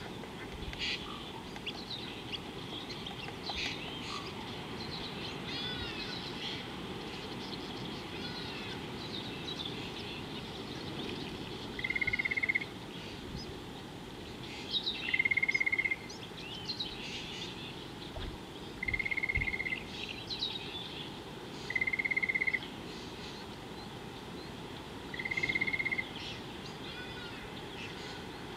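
Wild birds chirping and trilling over a steady low outdoor background. From about twelve seconds in, a single held note at one pitch, under a second long, repeats about every three seconds and stands out as the loudest sound.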